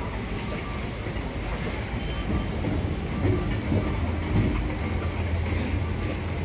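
Electric suburban local train running over the rails, wheels clicking over the joints above a steady rumble, heard from on board. A low steady hum comes in about halfway through.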